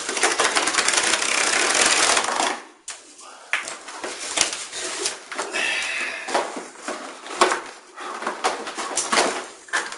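Corrugated cardboard tearing in one long continuous rip for about two and a half seconds as a long box is torn open along its length. This is followed by rustling, scraping and light knocks of the cardboard being handled and the box opened up.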